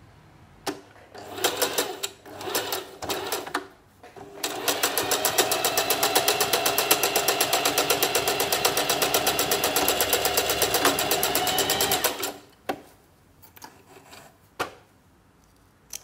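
Singer Heavy Duty 4432 electric sewing machine stitching jute burlap. It makes a few short stop-start bursts, then one steady run of rapid, even needle strokes for about eight seconds that stops abruptly. A few light clicks follow near the end.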